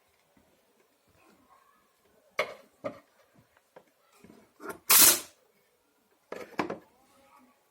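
Handling clatter from the parts of a disassembled vacuum cleaner and its cord reel: scattered knocks and clacks, with a longer, louder burst about five seconds in.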